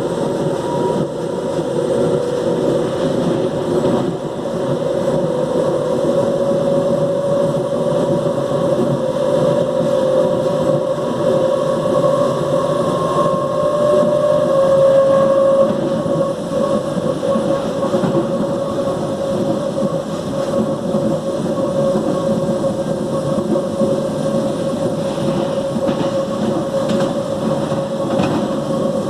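Mafersa-built CPTM series 1700 electric multiple-unit car 1739 running with a very loud growl: a dense drone under a steady whine. The whine climbs a little and swells about halfway through, then settles back.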